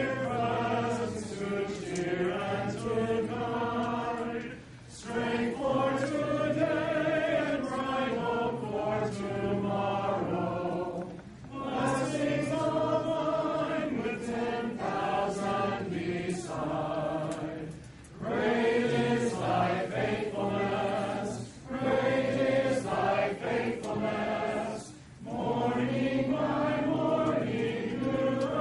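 A group of voices singing a hymn together in long phrases, with short breaks between lines.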